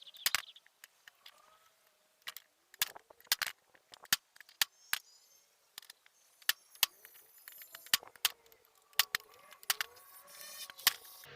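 Hammer blows on a hand impact screwdriver, a series of sharp metallic strikes at irregular intervals, breaking loose the tight flathead screws of a Puch E50 moped engine's transmission cover.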